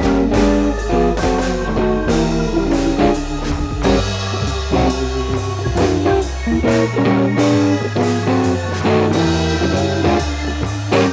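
Background music: a guitar-led blues-rock track with drum kit and a steady bass line.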